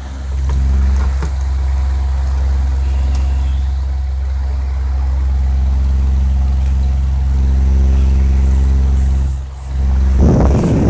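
A small electric motor running with a steady low hum, like a blower making wind. It drops out briefly about nine and a half seconds in, and near the end air rushes and buffets the microphone.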